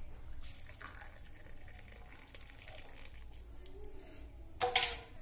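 Hot milk tea pouring and trickling faintly through a plastic mesh tea strainer into a ceramic cup, with a brief louder noise about four and a half seconds in.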